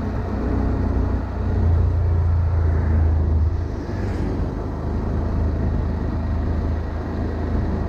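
Honda Monkey 125's single-cylinder four-stroke engine pulling as the bike accelerates through about 40 to 55 km/h. The engine note is strongest in the first few seconds and eases a little as the speed steadies.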